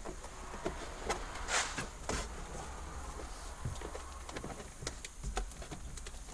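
Faint, scattered clicks and rustles of hands working an antenna wire into the rubber door gasket and interior trim of a car, over a low steady hum.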